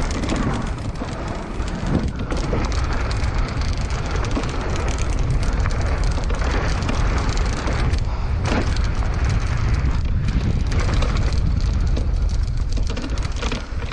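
Wind buffeting the microphone over the rolling noise of mountain bike tyres on a dirt trail, with scattered knocks and rattles from the bike over rough ground.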